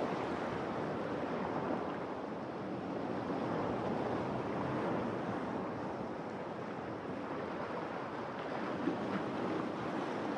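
Ocean surf breaking and washing in, a steady rush that slowly swells and eases.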